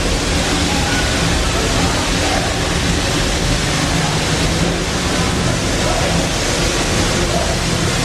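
Narrow-gauge steam locomotive venting steam low at its front end: a loud, steady hiss. Crowd voices murmur underneath.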